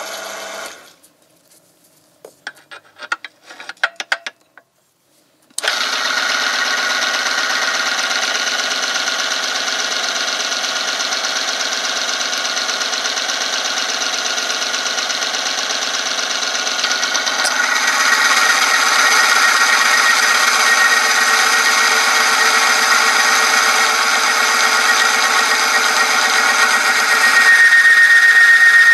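Oil-film friction testing machine: after a few clicks, its electric motor starts about five seconds in and spins the oil-wetted ring against the steel test sample with a loud, steady rubbing and grinding noise. The noise grows louder partway through as more weight loads the lever arm, and near the end a steady high squeal sets in under the heavier load.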